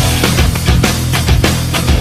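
Loud background music with a heavy rock beat: dense distorted sound over strong, regular drum hits.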